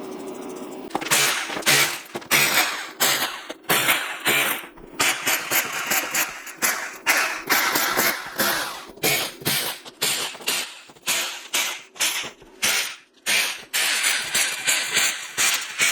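Repeated rasping strokes of a hand tool, steady and even at about two a second, starting about a second in.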